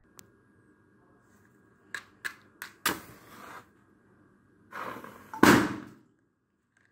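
A match scratched a few times on a matchbox and flaring into flame, then, about five and a half seconds in, a single loud pop as the balloon bursts when the mini crossbow fires.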